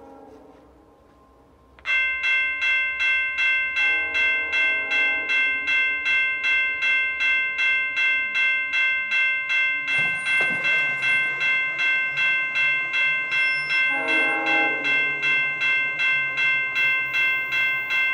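A railway warning bell ringing in a fast, even rhythm of about two and a half strokes a second, starting abruptly about two seconds in. Behind it the approaching West Coast Express train's horn sounds twice, about four and fourteen seconds in.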